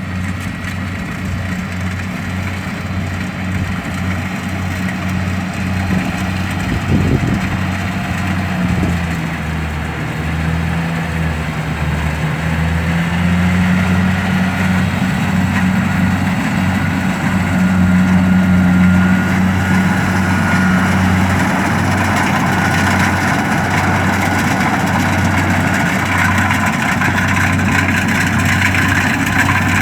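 Kubota DC-70 combine harvester's diesel engine running steadily while working. Its hum dips in pitch briefly about ten seconds in and then recovers. It grows louder towards the end, with a higher whine from the machinery joining in the second half.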